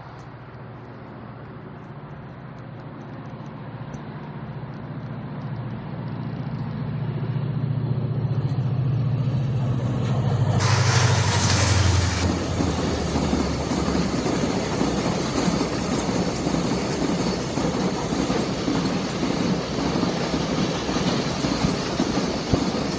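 Diesel-electric freight locomotive approaching, its low engine drone growing steadily louder and dropping in pitch as it passes, with a brief hiss at that moment. Tank wagons then roll past with a steady rumble of wheels on rail and clickety-clack over the joints.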